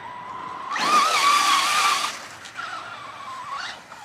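Traxxas Rustler VXL RC truck's brushless electric motor whining as it is driven. The pitch wavers and climbs with the throttle for about two seconds, with a rush of noise under it, then comes back briefly and falls away.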